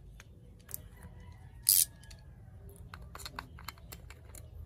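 Plastic shrink wrap on a small jar of nail gel being slit and ripped off with a metal spatula: one short, loud rip a little under two seconds in. Light plastic clicks and taps from the jar and its lid being handled follow.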